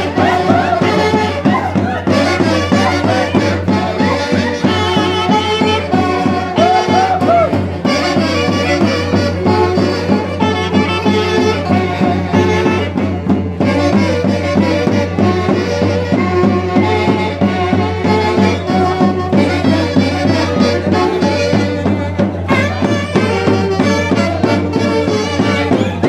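Festive band music led by wind instruments over a steady, driving beat, with no breaks.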